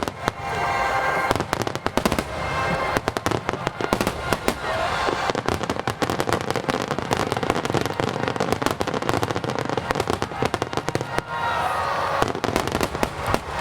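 A dense barrage of aerial fireworks: rapid, overlapping bangs and crackling, with music playing along with the show.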